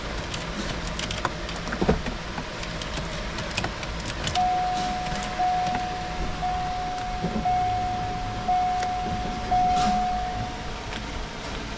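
An electronic warning chime repeating about once a second, six times in a row, each tone starting loud and fading slightly before the next. Scattered light clicks and handling noises come before it.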